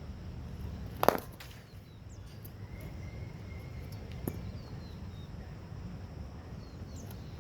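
Cricket bat striking a ball in a one-handed, top-hand drive: one sharp, loud crack about a second in, and a fainter knock about four seconds in.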